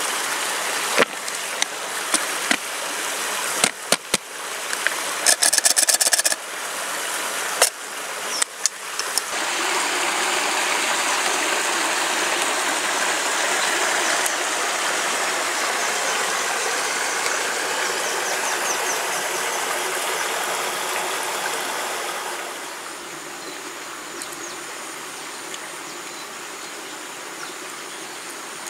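A cooking pot with a paper plate held over it as a lid is shaken, its contents rattling and knocking in a run of sharp clicks over the first nine seconds. Then comes the steady rush of a mountain stream, which drops quieter at about 22 seconds.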